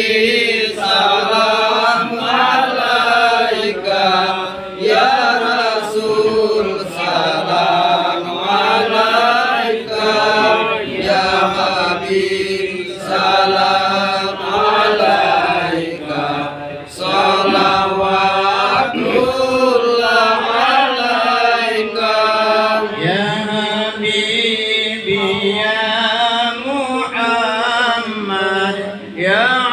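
A group of men chanting an Islamic devotional song (shalawat) together in a continuous melodic line, phrase after phrase with brief breaks for breath, as the baby is carried round for the hair-cutting rite.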